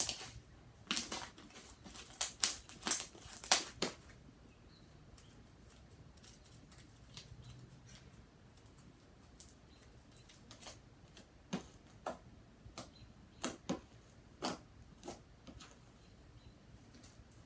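Fluffy slime being squished and poked by hand, making irregular sticky clicks and pops, clustered in the first few seconds and scattered again later.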